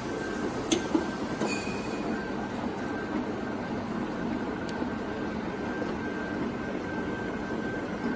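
Continuous band sealer running steadily as bags are fed through: a constant mechanical rumble from its motor, sealing bands and conveyor, with a thin steady whine. A couple of sharp clicks about a second in.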